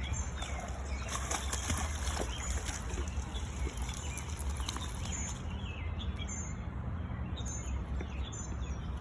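Outdoor background: a steady low rumble with a few short, high bird chirps scattered through it.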